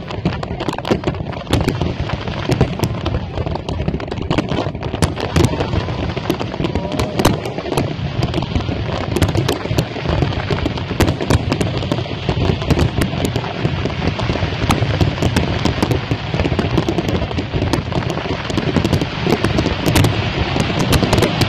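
Fireworks display in full barrage: many bangs and crackles overlapping in quick succession over a constant low rumble, without a pause.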